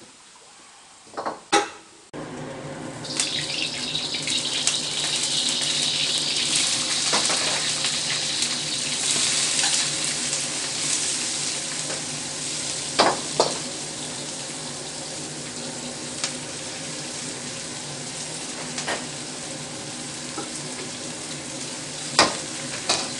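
Bean sprouts sizzling in a hot wok on a commercial wok burner: a loud hiss starts about three seconds in and slowly eases off over a steady low rumble from the burner, which comes on suddenly about two seconds in. Metal clanks of utensils against the wok come near the start, twice around the middle and twice near the end.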